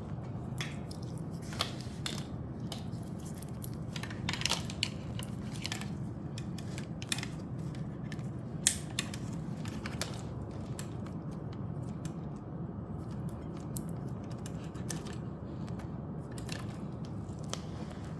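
Irregular light clicks and knocks, a few sharper than the rest, over a steady low hum.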